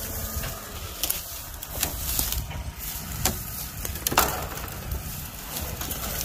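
Dry twigs and leaves crackling and snapping underfoot and against the body as someone moves through brush, a handful of irregular sharp snaps over a low steady rumble.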